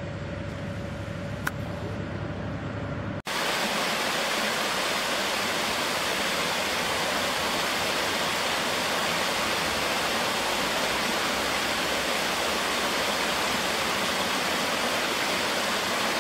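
Small cascading woodland waterfall, a steady even rush of water tumbling over rocks. It begins suddenly about three seconds in, replacing a low engine rumble with a steady hum and a single click from construction machinery.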